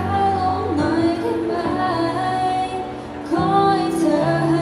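Music: a slow pop ballad with a female voice singing the melody over held chords and a steady bass line.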